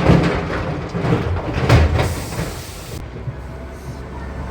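Demolition debris crashing and rumbling down for about two seconds, with several heavy impacts, over the steady drone of a running engine. Another short crash comes near the end.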